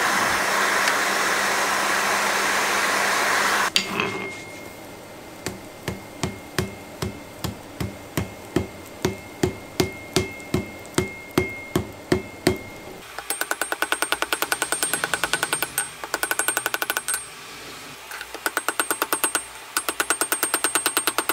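A forge's steady roar that cuts off with a sharp clang, then a hot billet of chainsaw chain being forge-welded. Hammer blows land about two to three a second as dull thuds. Then comes a fast run of ringing strikes at about eight a second, broken by a short pause.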